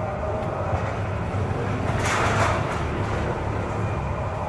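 Restaurant ambience: a steady low hum under a noisy background, with a brief swell of rushing noise about two seconds in.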